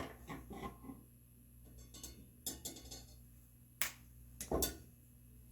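Small hand tools handled on a wooden workbench: a few light clicks and taps, with a sharper click and a duller knock in the second half.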